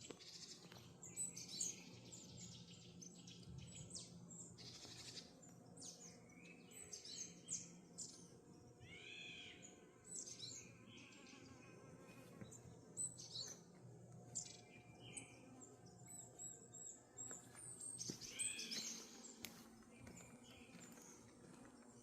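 Small birds chirping and calling, faint, with many short high chirps scattered throughout and a series of arching notes about nine seconds in and again near nineteen seconds.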